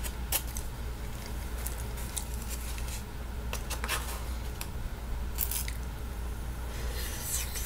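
Eating out of a white foam takeout container: faint, scattered clicks and scrapes of a utensil against the container, with chewing, over a steady low hum.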